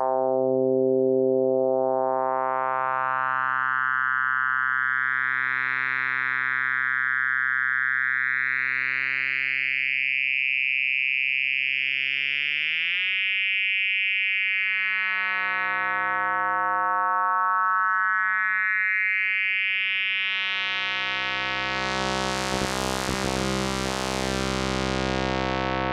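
K-ACCUMULATOR synthesizer module playing a sustained drone as it moves into its FMNT mode: a buzzy tone thick with overtones, its bright bands sweeping up and down. About halfway through the pitch glides up, and near the end the sound turns harsher and brighter with a rapid shimmer.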